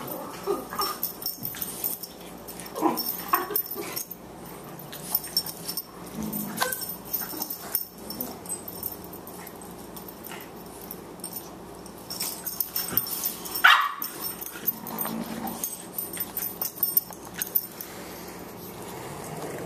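Two Boxer dogs, a puppy and an adult, play-fighting: scattered short dog vocalisations and scuffling. The loudest is a single sharp cry that rises and falls, about 14 seconds in.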